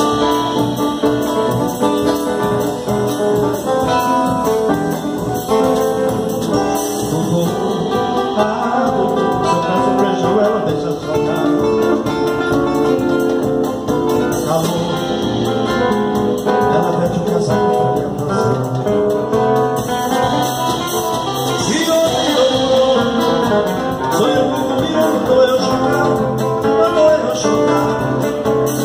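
Two nylon-string acoustic guitars playing a Brazilian popular song together, one keeping up strummed chords while the other picks a melody, with a man's voice singing along wordlessly.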